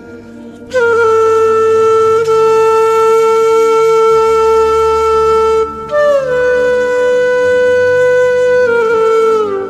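Background music: a flute holds one long note for about five seconds, then plays a higher note that slides down and settles, over a soft low drone.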